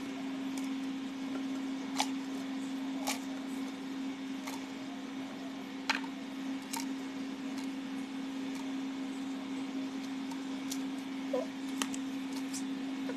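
Scattered light clicks and taps of chillies and other ingredients being dropped into a plastic blender jar, over a steady low hum.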